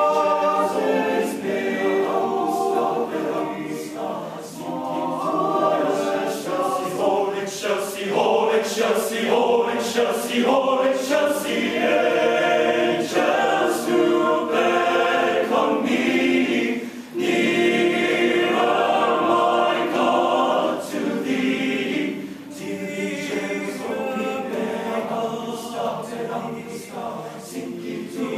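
Male choir singing a cappella, many voices in sustained harmony, with a brief break about two-thirds of the way through.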